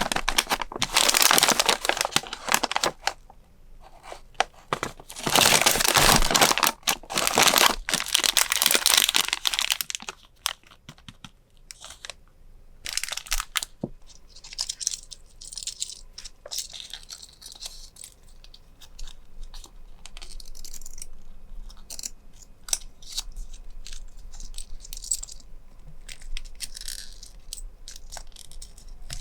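Packaging being torn and crinkled open in three loud spells over the first ten seconds, then quieter rustling and handling with scattered light taps.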